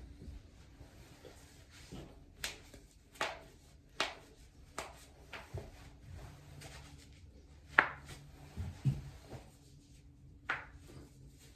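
Spinal joints cracking: a series of about eight sharp pops at irregular intervals, the loudest about eight seconds in, with faint rustling between them.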